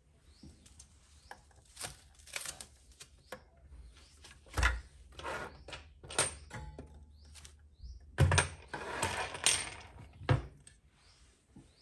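Scattered clicks and knocks of small parts and tools handled during hand assembly of an RC excavator model, with a short rustling stretch about eight seconds in. Faint short bird chirps sound now and then in the background.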